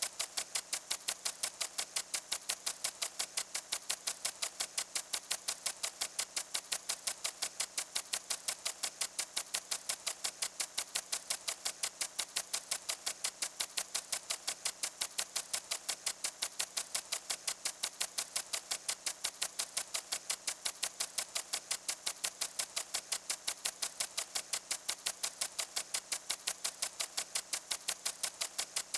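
A water sprinkler ticking steadily, about four ticks a second, over the hiss of its spray.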